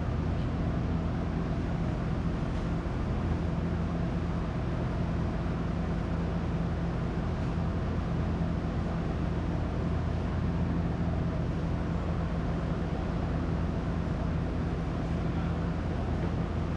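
A machine running steadily: an even, low-pitched drone that does not change.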